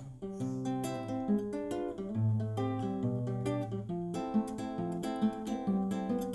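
Instrumental passage of a song: an acoustic guitar strumming chords, with the low notes moving under each chord change and no singing.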